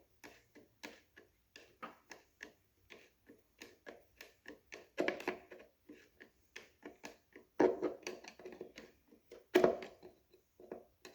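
Irregular light clicks and taps, with a few louder clunks, of parts being handled and fitted while the air filter assembly on a Briggs & Stratton mower engine is put back together.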